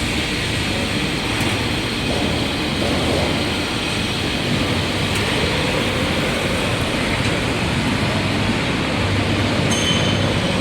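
Cable tray roll forming line running, giving a steady, dense mechanical rumble and clatter. A faint high whine joins near the end.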